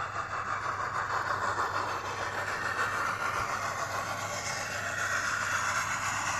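Model Prussian T20 steam locomotive's sound decoder playing a steady steam hiss with a fast, rapid texture as the locomotive runs, slowly getting louder.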